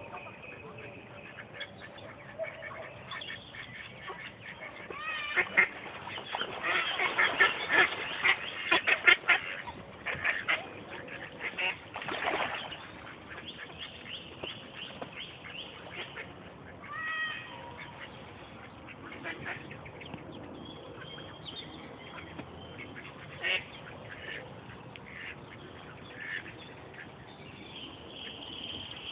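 Mallard ducks quacking, with a dense run of rapid, loud quacks in the first third and scattered calls after.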